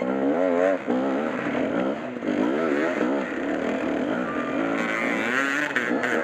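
Beta 250 dirt bike engine running under throttle, its pitch rising and falling repeatedly as the rider blips and rolls off on a rough trail.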